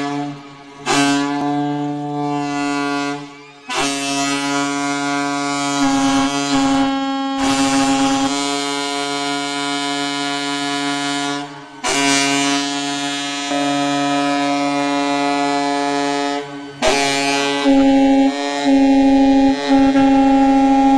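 Ships' horns sounding long blasts together at several pitches, breaking off briefly about every four seconds and growing louder near the end: a horn salute for a ship being launched.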